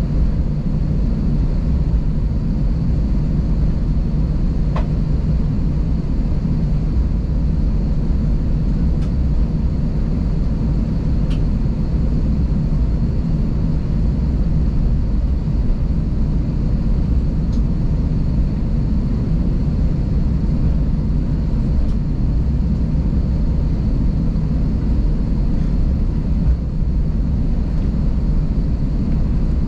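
Airbus A320 cabin noise while taxiing: a steady low rumble of the engines at taxi power, with a faint high whine and a couple of light clicks.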